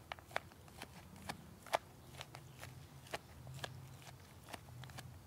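A wooden stick pounding and crushing mixed wild berries, chokecherries among them, in a plastic tub: sharp, irregular knocks and crunches, about two or three a second.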